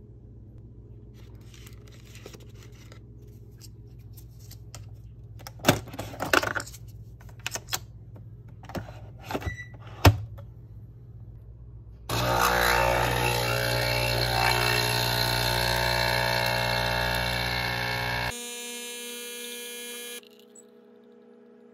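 Nespresso capsule coffee machine: several clicks and knocks as a capsule is handled and the lid is clicked shut, the loudest snap about ten seconds in. About twelve seconds in the pump starts with a loud, steady buzz as a lungo brews, shifts to a quieter tone about six seconds later, and cuts off near the end.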